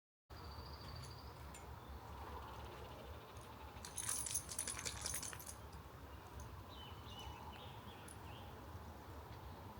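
Quiet outdoor ambience with a few faint high chirps, and a brief burst of metallic jingling about four seconds in.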